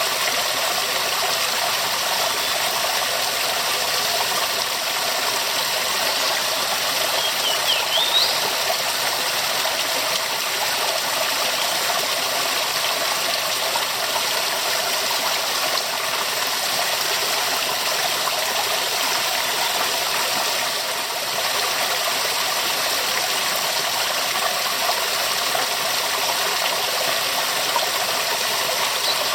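Waterfall: a steady, unbroken rush of falling water. A brief high chirp is heard about eight seconds in.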